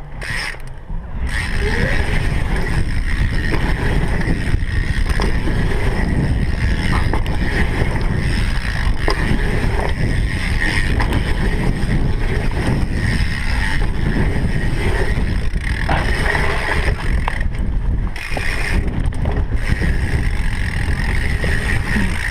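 Wind buffeting an action camera's microphone over the rumble of mountain bike tyres rolling on a dirt trail, with occasional knocks and rattles from the bike over bumps.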